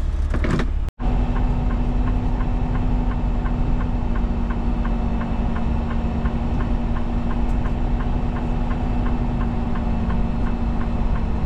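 Inside the cab of a Freightliner semi truck moving slowly with its diesel engine running: a low, steady hum with a light, regular ticking about three times a second.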